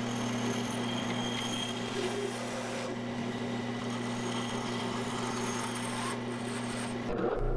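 Bandsaw running with a steady motor hum while its narrow blade cuts through a small wooden lure blank.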